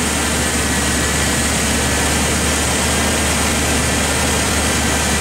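1989 Chevy pickup's engine, converted to a carburetor and HEI distributor, idling steadily.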